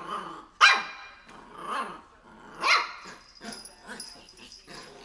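A three-month-old shih tzu puppy barking in short, high yaps, loudest about half a second and just under three seconds in, then quieter over the last two seconds.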